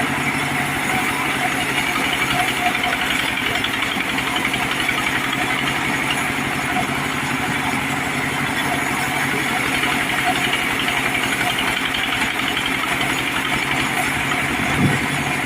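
Diesel engine of a mobile sawmill running at a steady speed, with a short thump near the end.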